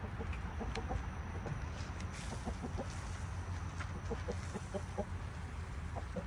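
Several chickens clucking in short, scattered notes while feeding, over a steady low rumble, with a few sharp clicks.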